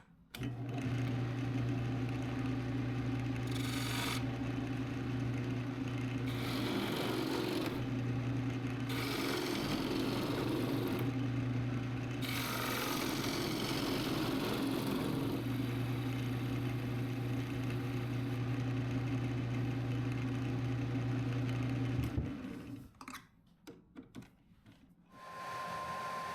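A woodworking power tool runs with a steady motor hum, with several stretches of rougher noise as it works the wood. The tool shuts off about 22 seconds in, followed by a few light knocks.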